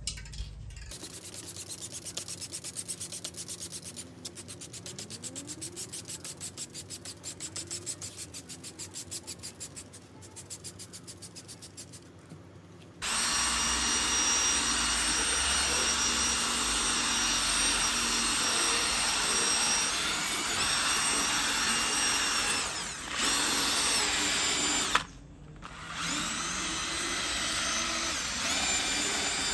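Rhythmic scrubbing or brushing strokes, about five a second. About 13 seconds in, a power tool starts and runs steadily and much louder, with a short stop near the end.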